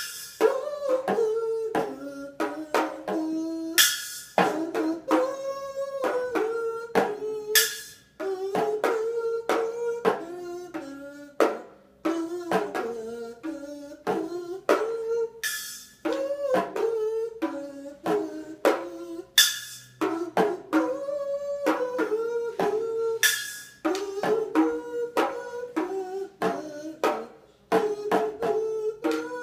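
A kazoo buzzing the melody of the national anthem while a toy drum kit is tapped along in an uneven beat, with about five short splashes from the kit's small toy cymbal.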